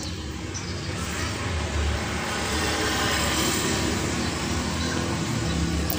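Road traffic passing, a vehicle's engine noise swelling a little about a second in and then holding steady.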